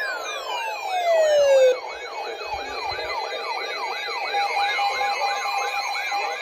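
Electronic siren sounds layered together. A loud tone slides down in pitch and cuts off suddenly about two seconds in, over a fast yelping wail that repeats about two to three times a second, with a higher wavering tone above it.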